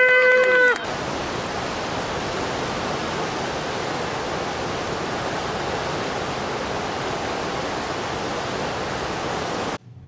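A brief held pitched note at the very start, then the steady rush of a muddy river torrent, which cuts off suddenly near the end.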